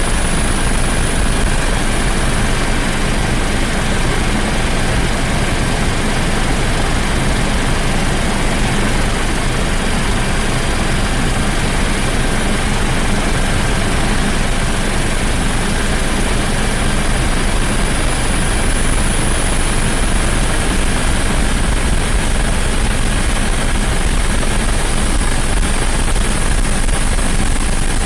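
Helicopter rotor and turbine noise heard from aboard the helicopter: a constant, unchanging rushing drone with a low hum and a thin, steady high whine.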